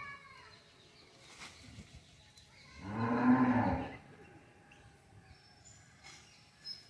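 An animal's low call, about a second long, rising then falling in pitch, about three seconds in.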